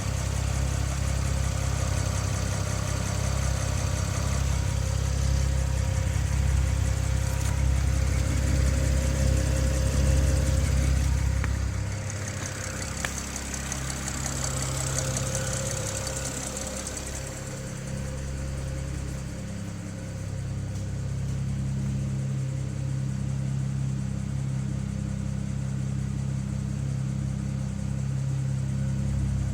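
BMW N54 twin-turbo straight-six idling with a ticking noise whose cause the owner cannot identify. The low rumble drops about twelve seconds in.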